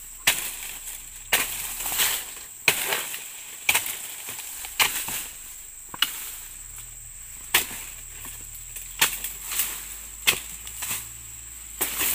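Steel dodos chisel on a wooden pole chopping into the frond bases of an oil palm, cutting the fronds off in pruning: about ten sharp chops, roughly one a second and unevenly spaced.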